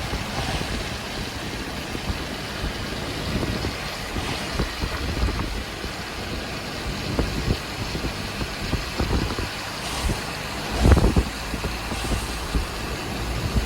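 Car driving: steady engine and road noise, with scattered light knocks and one louder low thump about eleven seconds in.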